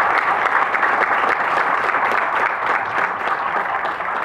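Applause from a room full of people, many hands clapping steadily and easing off slightly near the end.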